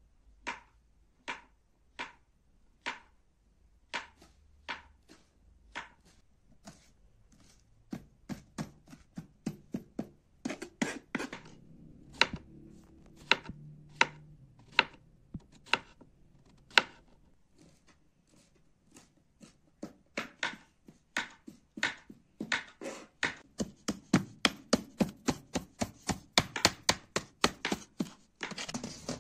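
Kitchen knife chopping on a plastic cutting board: sharp single strokes slicing button mushrooms, about one a second, growing faster. Near the end comes rapid chopping of fresh parsley at several strokes a second.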